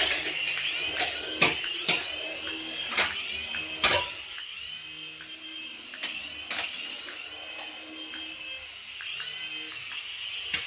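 A small electric toy motor whining steadily at high speed, with irregular sharp clicks and knocks of plastic parts.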